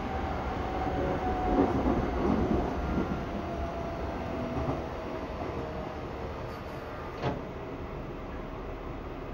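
Seibu 6000 series electric train, recorded from aboard, running with a Hitachi GTO inverter: a faint motor whine over the rumble of the wheels and car body. The whine falls slowly in pitch, and a single sharp click comes about seven seconds in.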